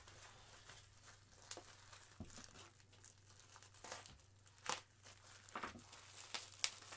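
Faint crinkling and crackling of plastic packing wrap being handled and pulled open by hand, in scattered bursts with a few sharper crackles in the second half.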